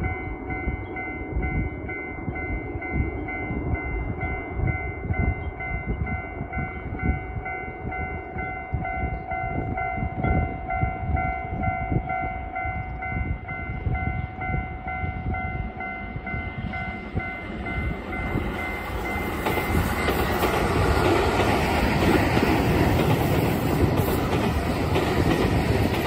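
A level-crossing warning bell rings steadily. From about eighteen seconds in, a Keihan electric commuter train's running noise and wheel rumble build up as it passes close by, growing louder and drowning out the bell.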